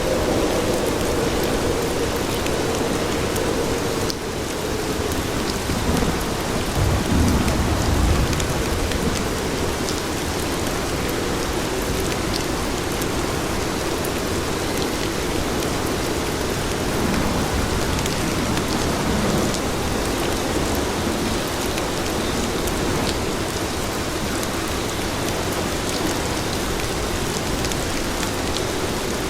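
Steady rain falling on city pavement, an even hiss of drops. A low rumble swells about six seconds in and fades after eight.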